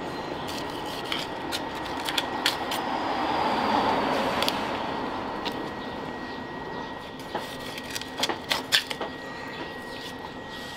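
Knife cutting into a tuna head on a wooden board, with sharp clicks and knocks of the blade against bone, loudest in a quick cluster near the end. Under it runs a steady background noise that swells and fades about four seconds in.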